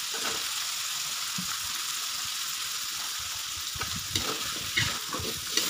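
Salted baby squid sizzling steadily in oil in a metal wok as sliced green chillies are tipped in. From about four seconds in, a metal spatula scrapes and knocks against the wok as the mix is stirred.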